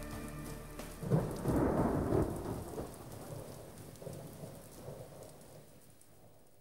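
A clap of thunder about a second in, rumbling and slowly dying away over several seconds, with the hiss of rain; the last notes of a song fade out at the start.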